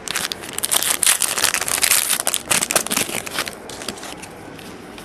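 Trading cards handled by hand as a pack is gone through, a quick run of rustling and clicking that fades out about three and a half seconds in.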